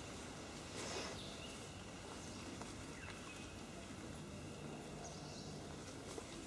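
Quiet forest ambience: a faint, steady hiss of background noise, with a soft rustle about a second in.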